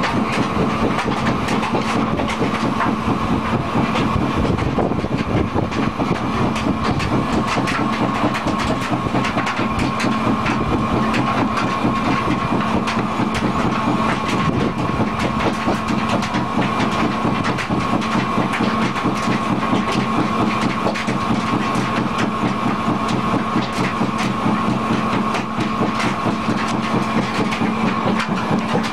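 Bagasse briquette press running, belt-driven, with a steady machine hum under a continuous rapid clatter.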